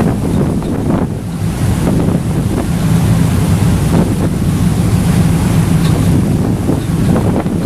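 Wind buffeting the microphone on a moving passenger ferry, over a steady low drone and the rush of water past the hull.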